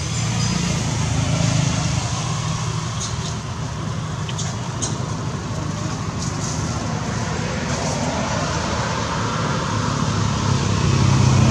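An engine running steadily, a low rumble that grows louder near the end.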